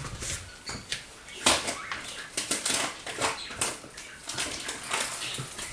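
Graham cracker packaging being handled: irregular rustling and crinkling with scattered light clicks.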